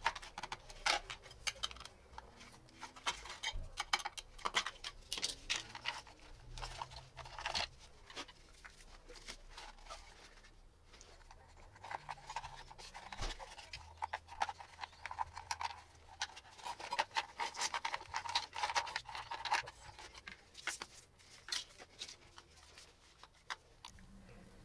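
Clicks, scrapes and rustling of hands and a screwdriver working a motorcycle license plate holder's plastic housing and its wiring, prying cable clips loose and pulling cables through. A longer rubbing scrape runs through the middle.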